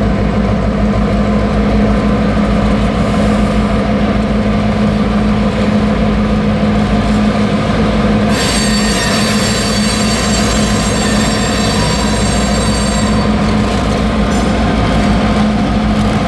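A BNSF GP38-2 diesel locomotive's two-stroke V16 EMD engine running steadily as the locomotive creeps along the track. About eight seconds in, its wheels squeal high and steady for about five seconds, then stop.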